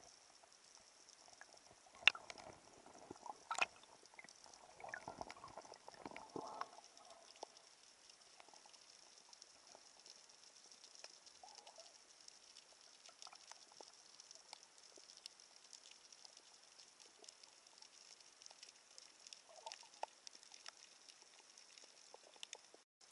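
Faint underwater ambience heard through an action camera's housing: a steady crackle of tiny clicks, with a louder stretch of sharp knocks and rumbling bubble-like noise about two seconds in that dies away after about seven seconds.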